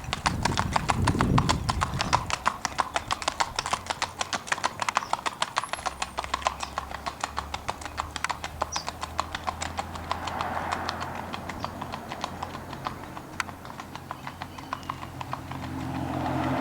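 Hoofbeats of a gaited horse moving out in its smooth gait: rapid, even clip-clop of hooves.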